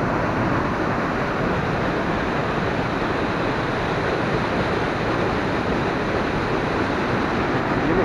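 Waterfall: a whole river pouring through a narrow rock cleft, a steady rush of water at an even level.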